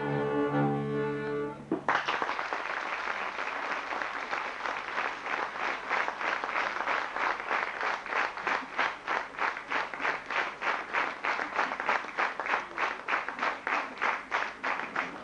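A folk band with violin and double bass ends its tune abruptly about two seconds in. The audience then applauds, settling into steady clapping in unison at about three claps a second, which fades near the end.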